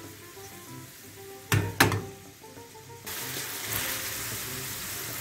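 Small meatballs frying in butter in a frying pan while the pan is shaken: two sharp knocks about a second and a half in, then a steady sizzle that starts suddenly about three seconds in.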